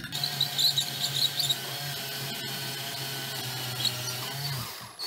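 Cordless drill boring through a steel knife blade with an oiled metal-cutting bit. The motor runs steadily while the bit squeals high against the hard steel for the first second and a half, and the drill stops near the end.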